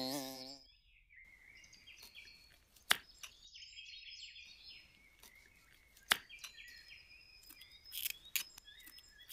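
Small knife cutting a tomato on a wooden cutting board, with a few sharp knocks as the blade meets the board: once about three seconds in, once about six seconds in, and a few close together near the end. Faint bird chirping throughout.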